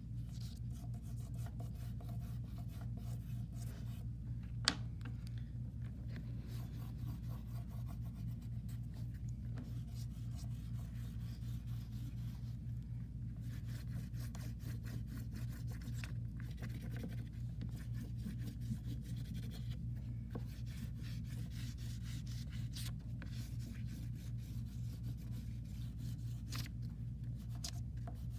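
Oil pastel scribbling on paper: irregular scratchy rubbing strokes going on without pause, over a steady low hum. A single sharp click about five seconds in.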